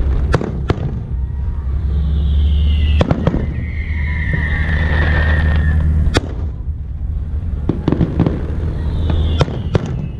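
Fireworks going off: a string of sharp bangs, often in pairs, with a high whistle falling slowly in pitch twice, over a steady low hum.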